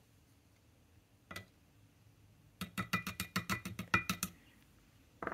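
Small ink bottle and its plastic holder handled on a desk: a single tap a little over a second in, then a quick run of about a dozen sharp clicks and knocks lasting under two seconds.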